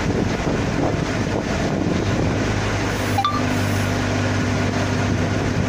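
Steady machinery running with a low hum, mixed with wind on the microphone; a brief short click-like sound about three seconds in.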